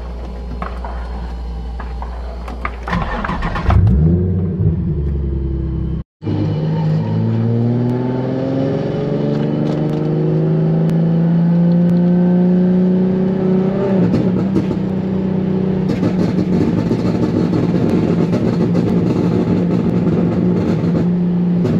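Single-turbo Nissan 350Z's V6 heard from inside the cabin, idling with a short rev about four seconds in. After a brief break in the sound, the car pulls away, its engine note rising slowly for about eight seconds and then holding steady at a cruise.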